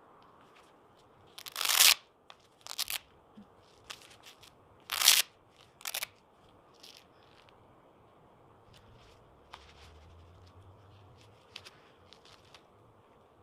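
Packaging being handled while MMA gloves are unboxed: short rustling and crunching bursts, the two loudest about two and five seconds in, with light clicks and taps between.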